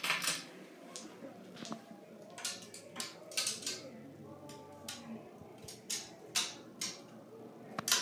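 Ceiling fan with a glass light globe spinning up from a start, with irregular light clinks and rattles, roughly one or two a second, over a faint low motor hum.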